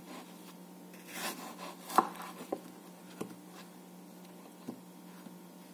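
Kitchen knife cutting through an apple on a wooden cutting board. There is a short scraping cut about a second in, then a sharp knock of the blade on the board, the loudest sound. A few lighter taps follow as the slices are moved.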